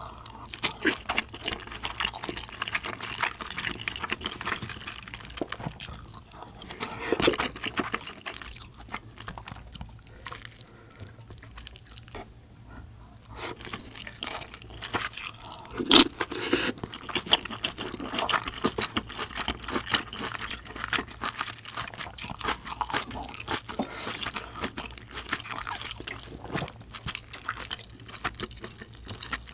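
Close-miked chewing, slurping and wet mouth sounds of someone eating spicy kimchi stew with chunks of kimchi and pork, with small crunches and scattered utensil clicks. There is one sharp click just past halfway.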